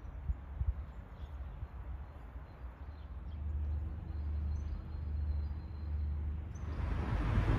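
Outdoor roadside ambience: a low rumble of wind on the microphone and traffic. About six and a half seconds in it switches abruptly to louder rushing wind and traffic noise.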